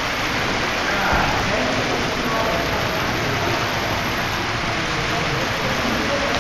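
Steady hiss of crowd noise in a busy hall, with indistinct voices in the background.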